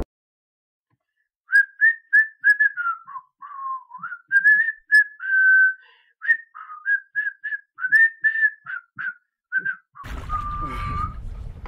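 A person whistling a tune, a quick run of short stepped notes with a few longer held ones. About ten seconds in it cuts to wind noise on the microphone.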